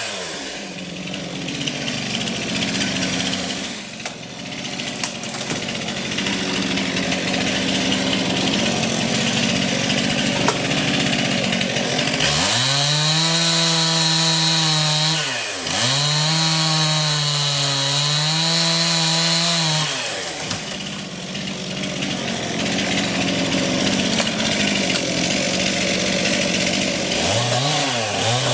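Chainsaw running throughout. It sounds rough and held down, as when cutting through ash wood, for the first twelve seconds. It then revs up high twice in clear whines that rise and fall, settles back under load, and revs briefly again near the end.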